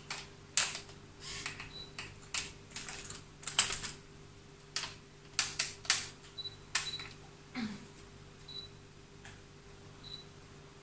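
A DSLR camera on a tripod being handled: irregular clicks and clacks from its buttons, dials and the tripod head, with a few short high beeps from the camera as the autofocus locks.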